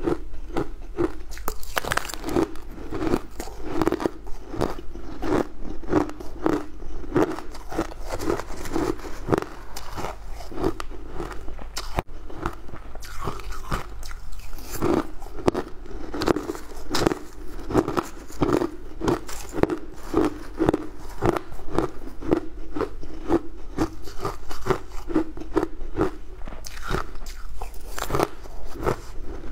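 Close-up chewing of a mouthful of frozen ice shavings: a quick, steady run of crunches, with the odd spoon scrape.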